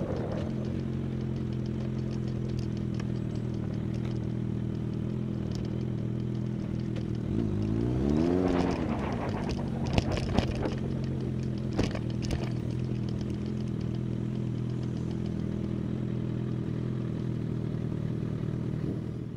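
Motorcycle engine idling steadily, with one short throttle blip about eight seconds in and a few sharp clicks a couple of seconds later.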